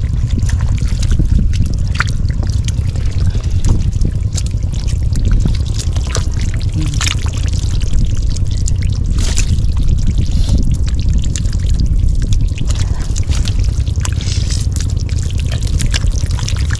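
Water splashing and trickling in short irregular splashes, over a steady low rumble.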